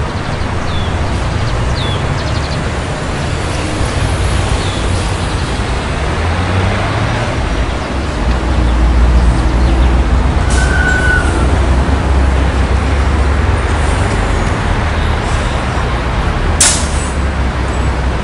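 City street traffic: a steady wash of road noise and engine rumble, which grows heavier about halfway through as a large vehicle passes, with a short sharp burst near the end.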